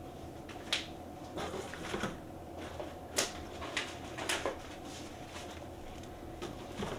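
Hand tools and their packaging being handled, making a scatter of light, irregular clicks and knocks over a faint steady hum.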